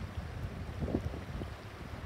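Shallow stream babbling over stones, with a few brief gurgles, under a low rumble of wind on the microphone.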